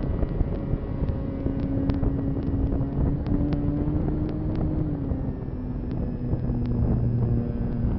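Onboard sound of an 800 mm Sbach 342 RC aerobatic plane in flight: the electric motor and propeller hum steadily under wind rushing over the microphone. The pitch eases down a little about five seconds in, and faint sharp clicks come through now and then.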